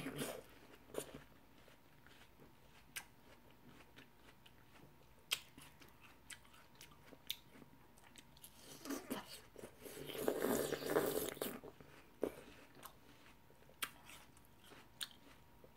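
Watermelon being bitten and chewed close to the microphone: faint wet mouth clicks scattered throughout, with a louder stretch of juicy biting and chewing about nine to eleven seconds in.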